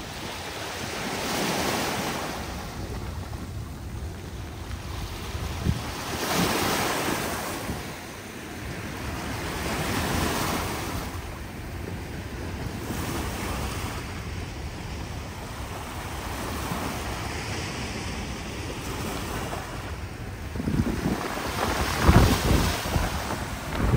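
Vehicles passing on a wet street: tyre hiss swells and fades every few seconds, with wind buffeting the microphone. The loudest, deepest pass comes near the end.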